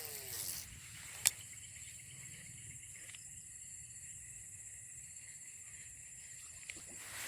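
Steady high-pitched insect drone in the background, with a single sharp click about a second in.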